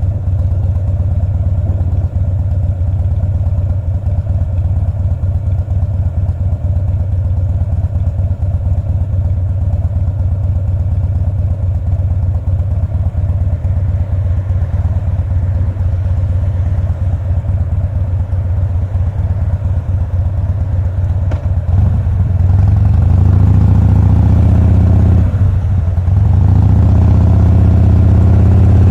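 2007 Harley-Davidson Softail Custom's V-twin engine running steadily at low revs. About three-quarters of the way through it gets louder as the revs rise, dips briefly, then climbs again near the end.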